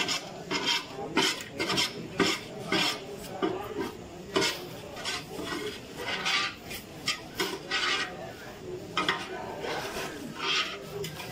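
Hands scrubbing and scraping the inside of a large steel cooking pot, a run of short rasping strokes about two a second.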